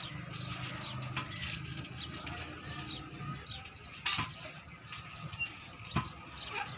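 Birds chirping, with a few sharp knocks.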